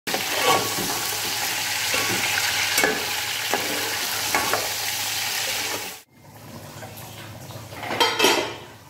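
Fish pieces sizzling as they fry in hot oil and masala in a metal pot, stirred with a slotted metal spoon that scrapes against the pot now and then. About six seconds in it cuts off suddenly to a much quieter stretch with one brief louder rustle near the end.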